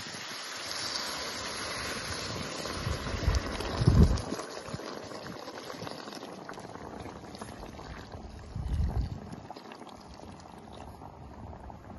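Water pouring in a thin steady stream from a ceramic jug into a steel pot of chicken, splashing into the liquid. A couple of low thuds come about four seconds in, the loudest, and again near nine seconds.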